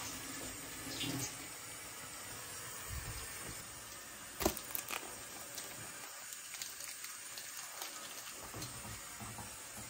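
Bread dumplings being handled onto a ceramic plate: a sharp knock against the plate about four and a half seconds in, then a couple of lighter knocks, over a steady hiss.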